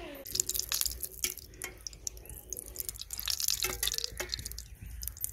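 A metal spoon clinking and stirring in a steel tin of cooking oil: an irregular run of small sharp taps and liquid drips.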